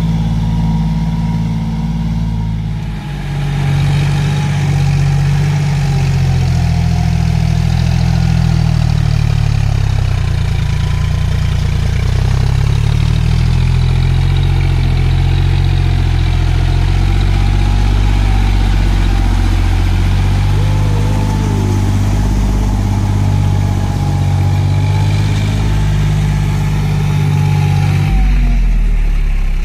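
John Deere farm tractor's diesel engine running under load as the tractor churns through deep mud and water in a flooded paddy field. Its note shifts up and down a few times, around three seconds in and again near the middle.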